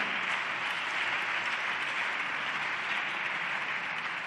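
Seated parliamentary deputies applauding steadily, a sustained sound of many hands clapping.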